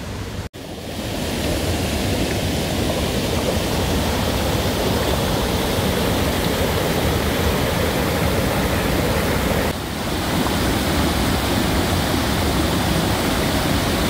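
Steady, loud rush of water pouring over the granite lip of Sengataki Falls, heard from right at the top of the drop. It breaks off for an instant about half a second in, then swells to full strength within a second.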